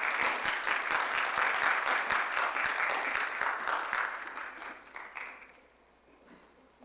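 Audience applauding: dense clapping that thins out and fades away about five seconds in.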